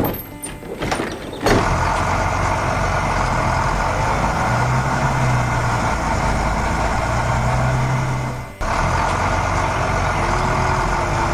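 A heavy machine's engine, as of a combine harvester, running steadily with a low hum. A few sharp knocks come first, and the engine cuts out briefly about eight and a half seconds in before carrying on.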